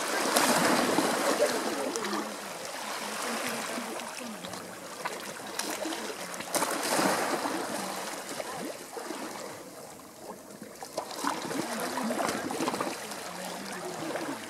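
Water splashing and lapping, swelling and easing in surges, with faint voices in the background.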